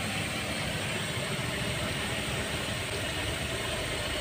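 Steady, even background rumble with no distinct events, of the engine-like kind.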